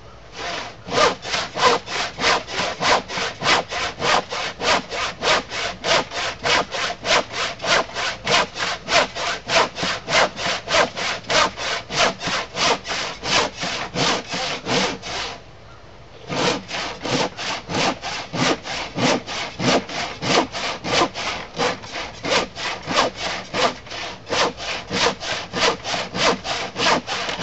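Hand saw crosscutting through the end of a thick glued-up wooden workbench top, in steady rasping strokes at about two and a half a second. The sawing stops briefly about halfway through, then resumes.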